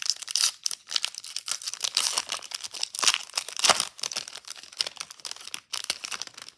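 Trading-card pack wrapper being torn open and crinkled: a dense, irregular run of crackles and rips that stops near the end.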